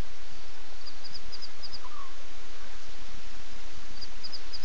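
Steady outdoor background hiss with faint short high-pitched chirps from a small animal, coming in quick pairs about a second in and again near the end, and one lower chirp about two seconds in.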